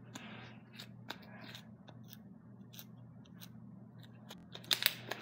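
Homemade teal slime of glue, shaving cream and cornstarch being stretched and squeezed by hand, giving off irregular small sticky clicks and crackles, loudest in a cluster near the end. The slime is still a little sticky and short of activator.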